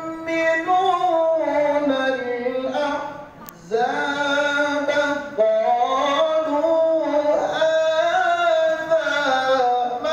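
A man's solo voice through a microphone, reciting the Quran in melodic tilawah style. He holds long ornamented notes that glide up and down, and breaks briefly for breath about three and a half seconds in.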